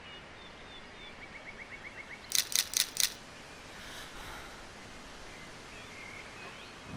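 A quick row of faint ticks, then four sharp mechanical clicks in quick succession, over faint background noise.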